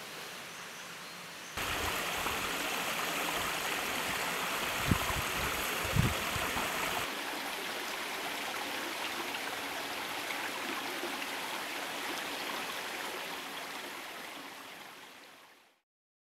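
Stream water splashing and rushing over rocks in a small cascade, a steady sound. It gets louder about a second and a half in, with two brief low thumps a few seconds later, then fades out.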